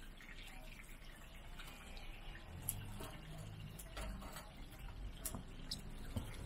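Scallion pancakes sizzling as they fry in oil in a wide shallow pan, a steady faint crackle with a few sharp clicks scattered through it.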